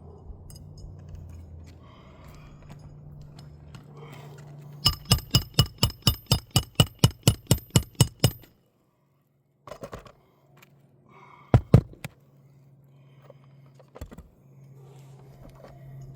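Hammer striking a nail in rapid, even blows, about five a second for three to four seconds, each blow ringing like metal. A few single taps follow. This is the nailing of a replacement asphalt shingle.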